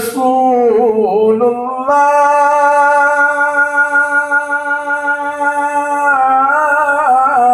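A man singing a naat, an Urdu devotional poem in praise of the Prophet Muhammad. He sings a wavering, ornamented phrase, holds one long steady note for about four seconds, then breaks into melodic turns near the end.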